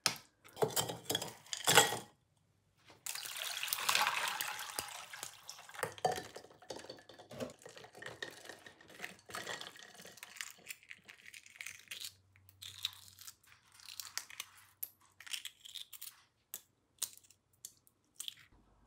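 A fork scraping and mashing avocado in a ceramic dish for the first two seconds. After a second-long gap, water sloshes loudly, followed by soft splashes, drips and small clicks of eggshell as boiled eggs are cracked and peeled in a bowl of ice water.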